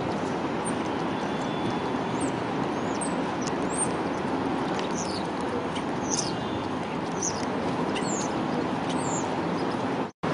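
Steady street noise with an electric tram rolling away, while small birds chirp again and again over it in short, high, falling notes. The sound drops out for a moment near the end.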